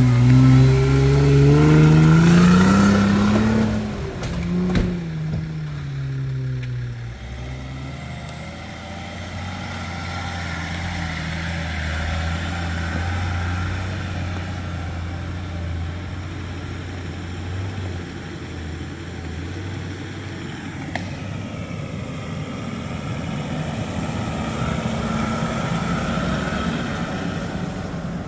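Off-road 4x4's engine revving up over the first couple of seconds, then easing back and running steadily at lower revs while it works through mud.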